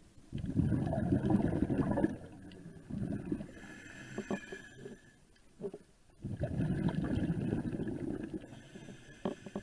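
Scuba diver breathing through a regulator underwater: two long bubbling exhalations, one about half a second in and one about six seconds in, each lasting about two seconds, with a quieter hissing inhalation between them.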